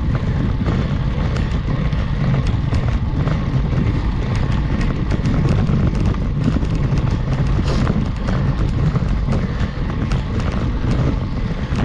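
Wind and riding rumble on a GoPro HERO 8's microphone while a road bike climbs a steep grade. Many short irregular ticks run through the rumble.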